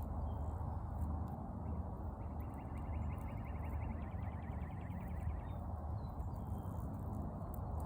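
Outdoor ambience: a steady low rumble, with a rapid high trill starting about two seconds in and lasting about three seconds, and a few faint chirps.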